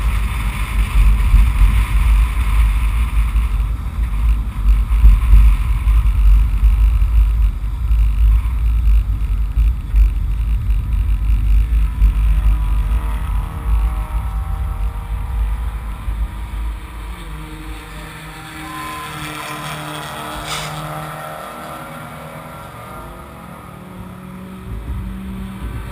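Wind and road rumble buffeting a hood-mounted camera's microphone as a race car is pulled on a tow strap behind a flatbed tow truck, fading after about fourteen seconds as they slow. Then the tow truck's engine is heard idling low and steady, with a brief sharp click about twenty seconds in.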